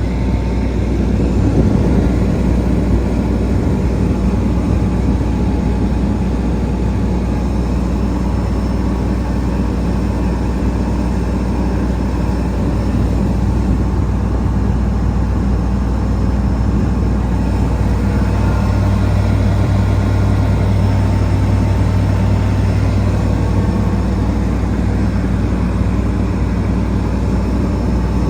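Diesel engine of a Wirtgen W100F asphalt milling machine running steadily with a deep, even hum; the low drone strengthens for a few seconds past the middle.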